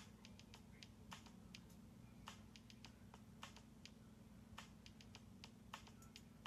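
Faint, irregular light clicks and taps, a few each second: a kitten's paw and claws tapping on an iPhone's screen.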